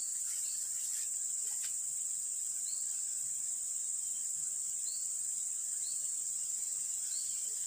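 Steady high-pitched drone of insects in riverside forest, with a few short rising chirps every second or two.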